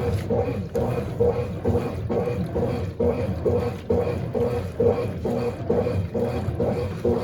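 Small Mondial BLK20 washing machine agitating a load of clothes in water: a rhythmic churning and sloshing over a low motor rumble, pulsing about two to three times a second.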